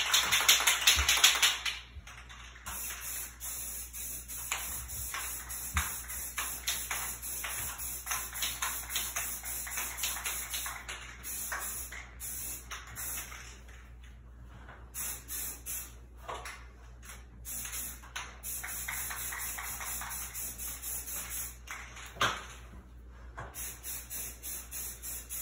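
Aerosol spray can of flat white paint hissing loudly for about two seconds, then a long run of short, quieter spurts and taps.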